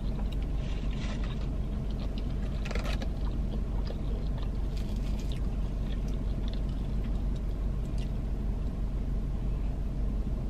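Mouth sounds of biting and chewing a fried mozzarella stick, with faint crunches now and then, over the car's steady low hum.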